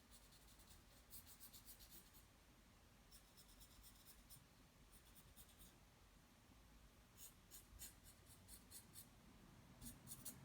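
Faint scratching of a drawing tool on paper, in several short runs of quick shading strokes.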